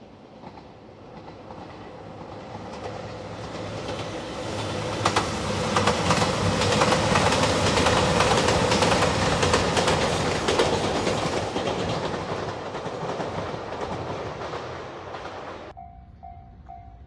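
A JR Shikoku 2700 series diesel limited express train passing a level crossing at speed. It grows louder, peaks with rapid wheel clicks over the rail joints, then eases off. Near the end the train sound cuts off sharply, leaving the level crossing bell ringing about twice a second.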